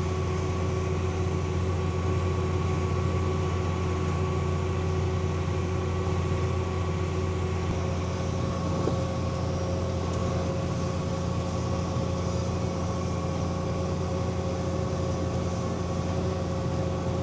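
John Deere tractor engine running steadily under load while pulling an air seeder, heard from inside the cab: an even low drone with a few constant whining tones above it.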